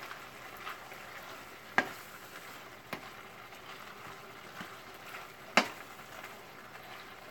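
Shrimp, chicken and vegetables sizzling in a hot wok as a wooden spatula stirs and tosses them. The spatula knocks sharply against the wok three times, the loudest about five and a half seconds in.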